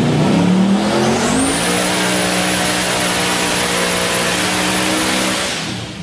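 Twin-turbocharged 408 V8 of a 1973 Ford Falcon XB on a hub dyno under full power. The engine note and a high whine rise over the first second and a half, hold steady, then fall away just before the end as the run ends.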